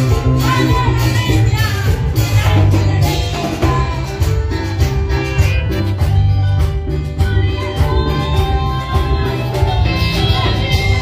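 A woman sings loudly into a microphone over amplified backing music with a steady beat and heavy bass.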